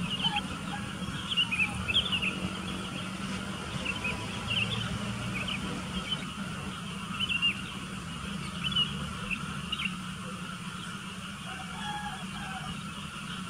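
Sooty-headed bulbuls calling: short, bright chirps in quick irregular clusters that thin out after about ten seconds, over a steady low hum.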